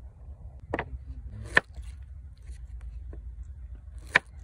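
Sharp knocks and taps on a wooden plank as food is handled and cut, three loud ones in all. The last, near the end, is a kitchen knife cutting through a red onion into the board. A low steady rumble lies under them.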